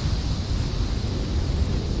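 Snowstorm wind blowing steadily: a deep, even rumble with a hiss above it.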